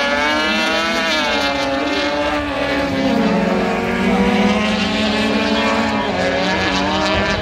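Autocross racing cars' engines running hard on track, revs rising and falling as the cars accelerate and brake through the corners.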